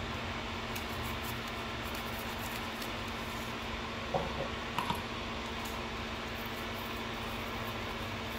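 Steady hum and hiss with faint handling sounds of a brush and paper towel on a circuit board as solder flux is cleaned off, and a few light taps about four and five seconds in.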